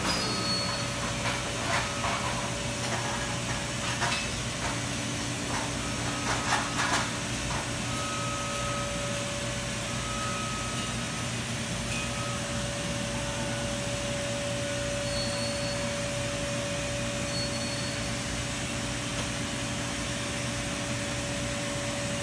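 Robotic CNC router cell running: a steady machine hum with one constant tone. Scattered clicks and knocks come in the first seven seconds or so, then the hum goes on evenly.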